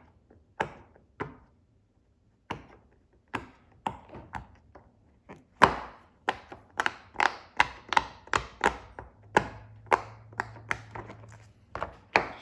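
Silicone Popit fidget toy's bubbles being pushed in one after another, each giving a short pop. A few scattered pops come first, then a quicker run of about two or three a second from about halfway through.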